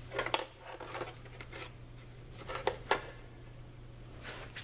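A few light clicks and handling noises from the handheld display of a digital refrigerant scale being picked up and its tare button pressed to zero the scale, with a faint steady low hum underneath.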